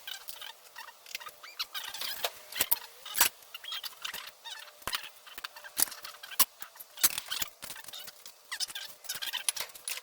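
A rapid, irregular run of small clicks, taps and short squeaks, with a few louder knocks about a third of the way in and again past the middle; nothing low-pitched underneath.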